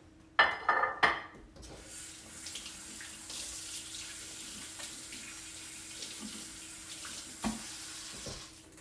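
A few loud clattering knocks about half a second in, then a kitchen sink tap running steadily while hands are washed under it. A knock comes near the end, just before the water shuts off.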